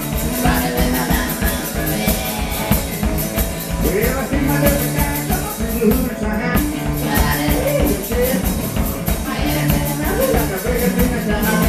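One-man band playing up-tempo rock and roll live: hollow-body electric guitar over a steady kick-drum and cymbal beat, with singing.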